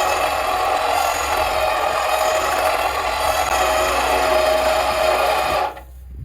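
A 12,000-pound winch running steadily under heavy load as it pulls in cable. It stops abruptly near the end.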